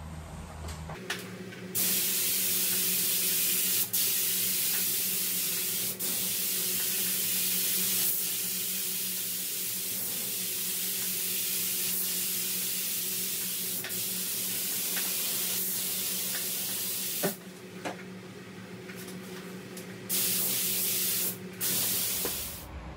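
Gravity-feed spray gun hissing with compressed air as it sprays automotive base coat: a long run of spraying with brief trigger breaks, stopping around two-thirds of the way in, then two short bursts near the end. A steady low hum runs underneath.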